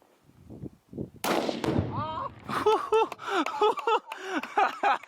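A sudden loud blast about a second in, as a charge of Tannerite is detonated by a rifle shot, dying away within half a second. Excited whooping and exclaiming voices follow.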